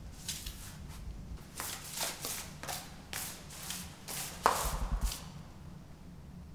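Footsteps of shoes on a hard floor, an uneven run of sharp steps about three a second. About four and a half seconds in comes one louder, sharper bang with a brief low rumble after it.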